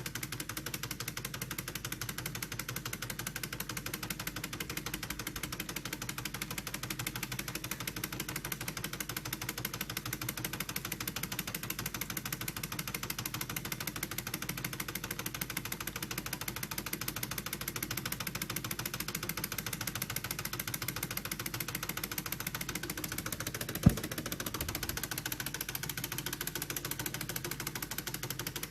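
3D-printed Stirling hot air engine running, a rapid steady mechanical clatter. One sharp knock stands out about three-quarters of the way through.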